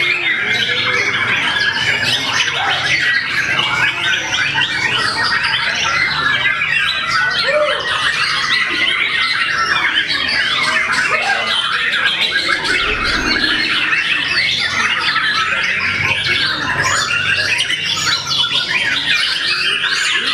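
Many caged white-rumped shamas (murai batu) singing and chattering over one another in a dense, unbroken chorus of quick, varied notes.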